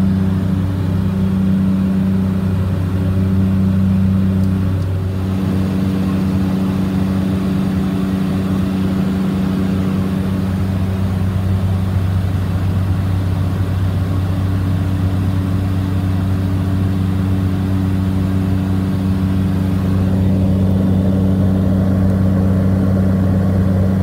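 Cabin drone of a Cessna 425 Conquest I's twin Pratt & Whitney PT6A turboprop engines and propellers in the climb. It is a steady, loud, low-pitched hum that holds level throughout.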